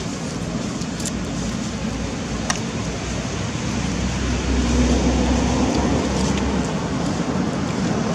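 Steady low rumble over background hiss, swelling about halfway through and easing near the end, with one small click in between; no monkey cry is heard.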